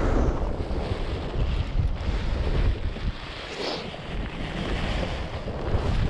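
Gale-force wind buffeting the microphone in heavy gusts, a deep uneven rumble with a rushing hiss over it.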